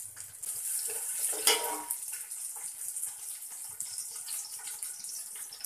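Sliced onions and green chillies sizzling as they fry in hot oil in an aluminium pot, a steady hiss that swells briefly about a second and a half in.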